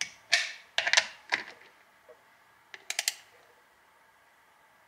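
Torque wrench with a 10 mm deep socket tightening serrated flange nuts on battery bus bars to 35 inch-pounds: sharp metallic ratchet clicks in a cluster over the first second and a half, then a quick run of clicks about three seconds in.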